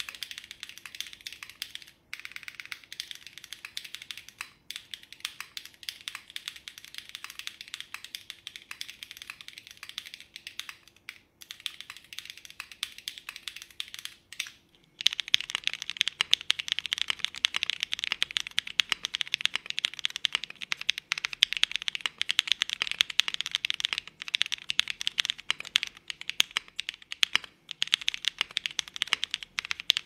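Steady, fast typing on a TechBear TB80 custom mechanical keyboard built with no foam, pads under the switches and a silicone case: a continuous clatter of key clicks. About halfway through the clicks turn clearly louder and fuller, as the recording switches from a Sony B10 to a Shure MV7 microphone.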